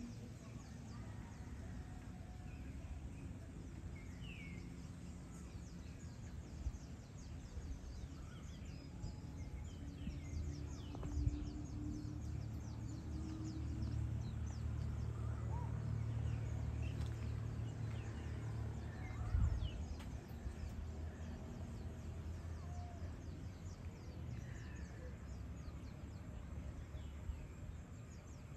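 Evening outdoor ambience: scattered short bird chirps over a low rumble that swells through the middle, with a couple of soft thumps.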